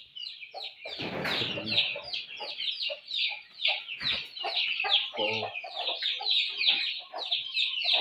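A flock of young chickens (pullets) peeping continuously in short, high, falling chirps, with lower clucks mixed in. About a second in there is a brief rush of dry feed being scooped from a sack.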